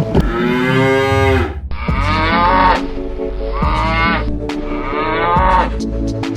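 Cow mooing: several drawn-out moos one after another.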